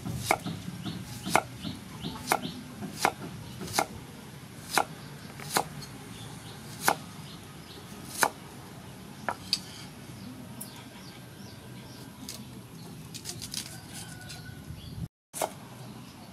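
Cleaver chopping an onion on a thick round wooden chopping board. Single sharp knocks come about a second apart and gradually space out, then a few lighter quick taps follow near the end.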